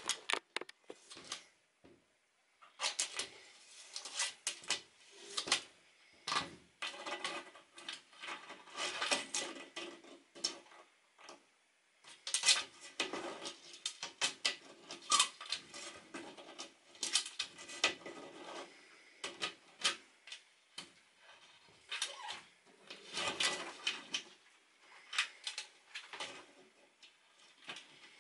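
Irregular handling noises: a clear plastic tub and jar knocking and rustling, with metal tweezers tapping and scraping against the plastic, in short clusters of clicks and taps with brief pauses between.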